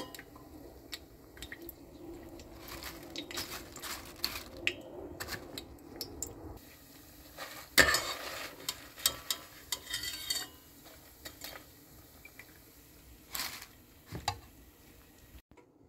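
Pieces of bread frying in hot oil in a stainless steel pot, sizzling, while a metal mesh skimmer scrapes and clinks against the pot as they are scooped out. The loudest clack comes about eight seconds in.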